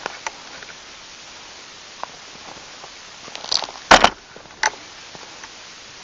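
Quiet background with a few short, sharp knocks and scuffs about four seconds in and one more shortly after: footsteps and handling of a camera tripod being carried.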